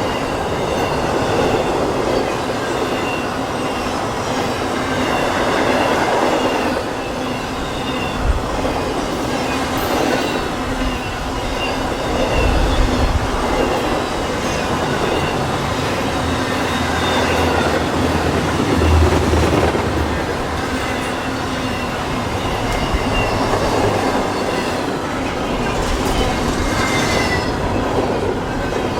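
A CSX intermodal freight train's cars rolling past on the rails: a continuous clatter of steel wheels, with thin wheel squeal and low thumps from the cars here and there.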